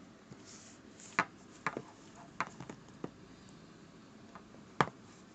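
Hands handling a smartphone's retail packaging: a handful of scattered sharp taps and clicks, the loudest near the end.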